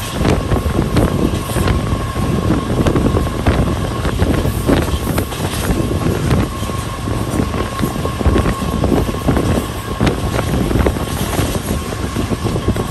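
Passenger train running at speed: a steady rumble of wheels on the rails, broken by frequent irregular clicks and clacks, with wind buffeting the microphone and a thin steady whine.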